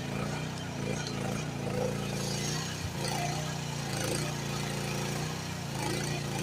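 GroundHog KH14G mini excavator engine running steadily under work, its pitch dipping briefly now and then as the hydraulics take load, with a light knock about three seconds in.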